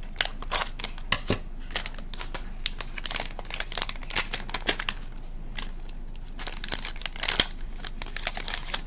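Shiny plastic blind bag crinkling and crackling in the hands as it is worked and torn open, with a short lull about halfway.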